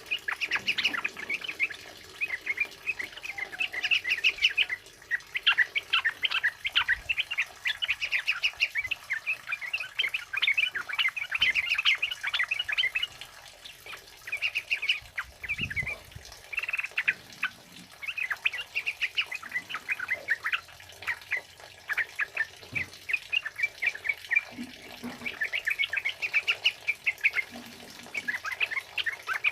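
Yellow-vented bulbuls (trucukan) singing a long, rapid 'ropelan' run of short, bubbly chirping notes, with brief pauses between phrases.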